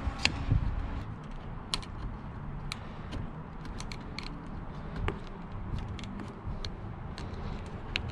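Irregular sharp clicks and small handling noises as a piece of old rubber-and-plastic weather stripping is pried and pulled loose from a car's door frame.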